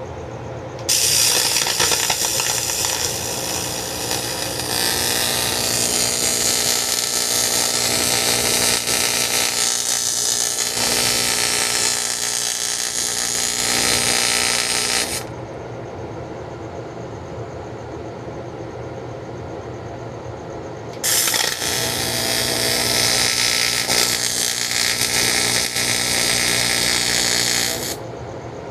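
Electric welding arc crackling and hissing in two long runs, the first about fourteen seconds and the second about seven seconds, each with a steady hum from the welder beneath it.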